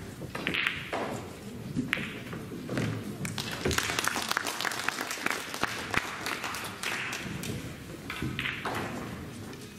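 Pool balls clicking and knocking as they collide on a pool table, with more clicks from neighbouring tables, and a stretch of scattered clapping in the middle.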